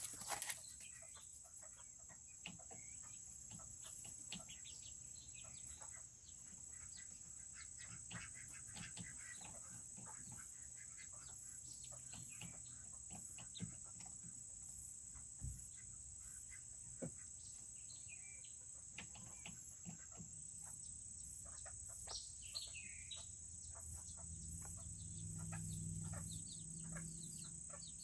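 Serama bantam chickens making soft chirps and clucks among many light ticks, over a steady high-pitched drone. A low hum swells in near the end.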